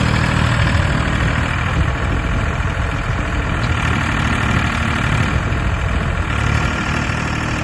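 Mini crawler excavator's small diesel engine running steadily.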